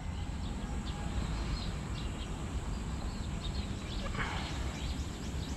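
Birds chirping over a steady low rumble, with one short rushing swish a little after four seconds in.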